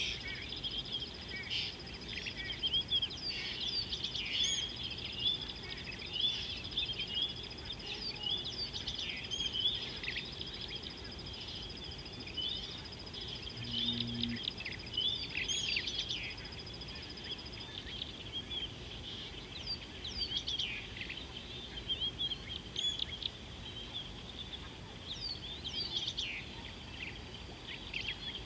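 Many small wild birds chirping and whistling over one another, with a thin steady high tone running under them that stops a little past halfway.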